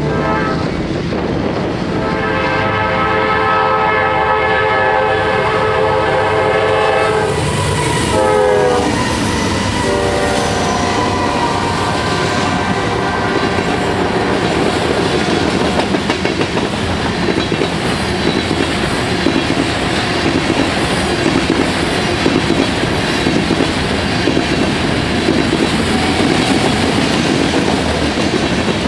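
Freight locomotive horn blowing a chord at the grade crossing, its pitch dropping about eight seconds in as the locomotive passes. Then a long string of covered hopper cars rolls by with steady wheel noise and clickety-clack over the rail joints.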